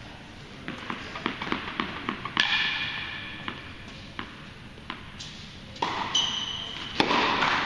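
A tennis ball bouncing on the hard indoor court, the bounces coming quicker as it settles, then a louder knock with a short ring, a few scattered single bounces, a brief squeak and a sharp hit near the end, all echoing in the large hall.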